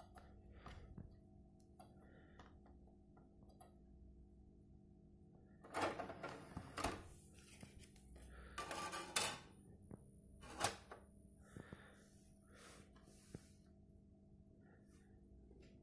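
Cyrus CD 6s CD player's drive mechanism: faint ticking while it reads, then the motorised disc tray running out about six seconds in, followed by a few sharp clicks and rattles at the tray.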